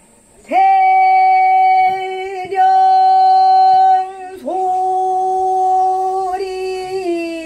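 A woman singing pansori unaccompanied, holding long steady notes with two short breaks, the last note sliding down in pitch near the end.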